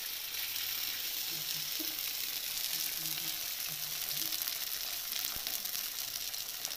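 Stuffed whole fish frying in a little oil on a flat tawa over a low gas flame: a steady, even sizzle.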